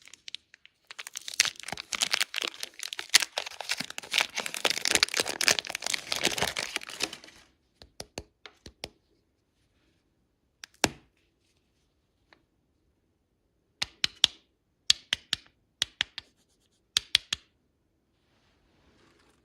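Close-up crinkling and tearing of a candy wrapper for about six seconds, followed by scattered sharp clicks and taps in small clusters.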